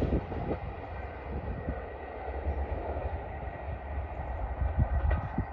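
ScotRail Class 170 Turbostar diesel multiple unit approaching from the distance: a steady rumble of its engines and wheels, with a faint high steady tone above it.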